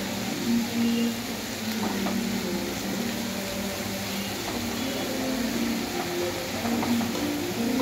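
Chopped onions frying in hot oil in a kadhai, a steady sizzle.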